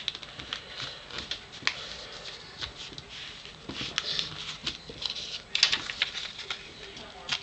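Sheet of paper being torn by hand along a fingernail-scored crease, a run of small crackling ticks with a louder, denser stretch of tearing about five and a half seconds in.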